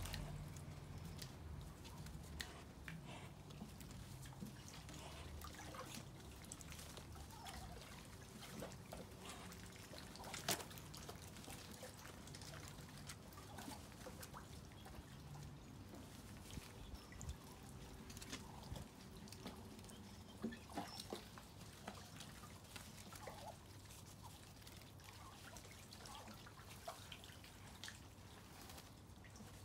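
Faint trickling and dripping of rainwater, with scattered small ticks and drips and one sharper click about ten seconds in.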